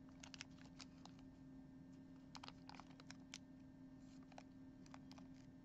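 Faint, scattered crinkles and clicks of a small plastic zip bag being worked open by fingers, over a steady low hum.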